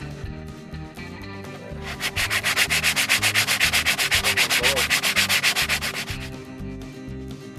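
A brake pad's friction surface is rubbed on sandpaper in fast, even back-and-forth strokes, about eight a second, starting about two seconds in and lasting around four seconds. The sanding takes off the raised ridge the pad wore against a groove in the brake disc, which made the brakes squeal.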